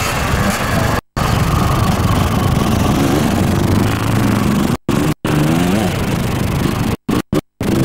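Kawasaki KX 60's small 60cc two-stroke single-cylinder engine revving up and down as it is ridden around a dirt motocross track, heard from a distance over a steady hiss. The sound cuts out to silence briefly several times, at about a second in, near the middle and twice more near the end.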